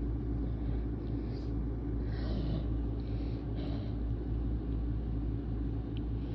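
Steady low background rumble with a constant hum, over which a person takes a few faint, short breaths.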